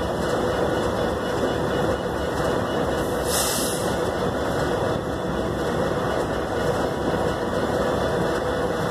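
CSX diesel-electric freight locomotive idling with a steady engine rumble, and one short hiss of air about three seconds in.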